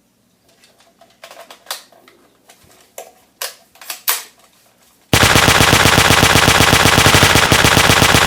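A few scattered sharp clicks and pops, then about five seconds in a loud burst of rapid automatic machine-gun fire lasting about three and a half seconds. This is a realistic gunfire sound effect laid over toy guns.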